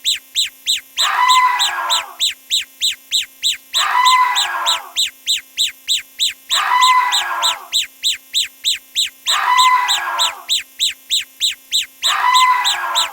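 A looped sound effect: a short, harsh honk-like call followed by a quick run of about half a dozen even ticks. The pattern repeats about every two and three-quarter seconds.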